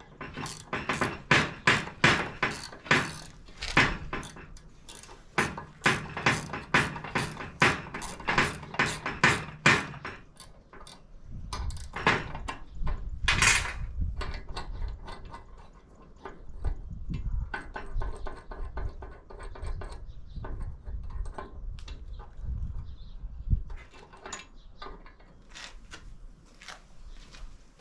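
Hammer striking a metal arm on a VW transaxle to drive it off, about three blows a second for roughly ten seconds with a short pause partway, followed by scattered metal clunks and knocks as the parts are handled.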